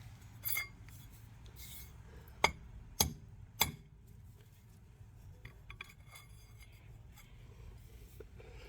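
Three sharp knocks about half a second apart, a few seconds in, as a part is banged further into place, with a short scraping rub near the start.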